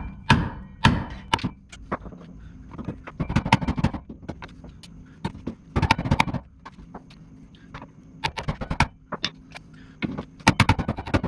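Hammer blows on a manual impact driver set in the seized door-hinge screws of a 1974 VW Super Beetle: sharp metal knocks, some single and some in quick runs of several, hitting to break up the rust holding the screws.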